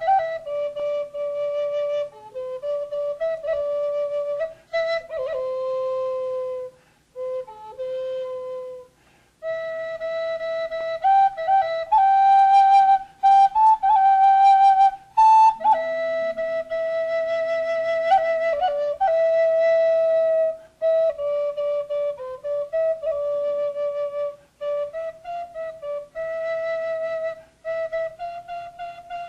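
Solo end-blown flute playing a slow melody of long held notes with slight slides between them, broken by short pauses between phrases.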